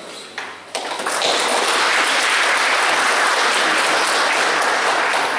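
Audience applauding in a conference hall. The clapping starts sharply about a second in and then holds steady and dense.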